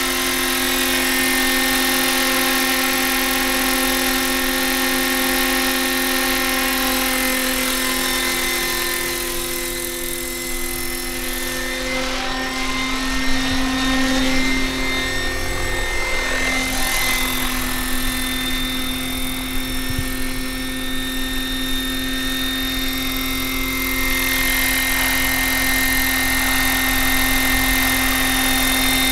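An electric-driven 1:7 scale Bell 230 RC helicopter flying. Its motor and gearing give a steady whine under the whir of the rotor. In the middle the pitch wavers and shifts as the helicopter flies far off, then it steadies again as it comes back close.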